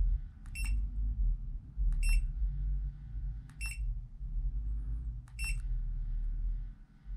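Short, high electronic double beeps repeating about every one and a half to two seconds, over a steady low rumble.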